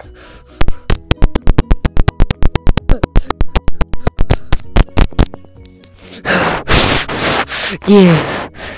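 A fast run of sharp knocks, about eight a second for several seconds, over quiet background music. Then come loud noisy blasts and a short cry that falls in pitch near the end, edited in as a beating sound effect.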